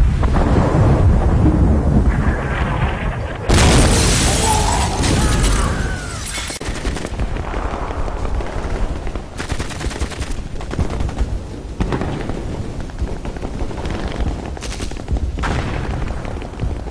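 War sound effects: bursts of gunfire and booming blasts, with a sudden loud blast about three and a half seconds in and rapid runs of shots later on.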